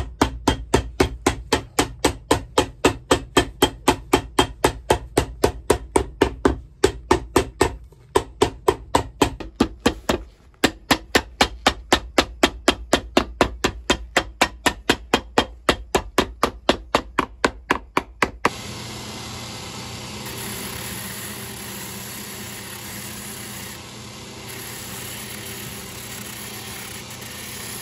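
Cobbler's hammer pounding a new leather sole onto a shoe held on a stand: a fast, even run of blows, about three to four a second, with a few short breaks. About 18 seconds in the hammering stops abruptly and a shoe finishing machine takes over, running steadily as the sole edge is sanded on its wheel.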